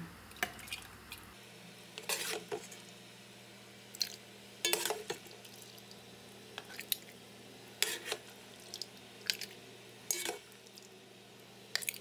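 A metal ladle clinking against a metal bowl and glass jars while hot jam is ladled into the jars: about nine separate clinks at uneven intervals, some with a short ring.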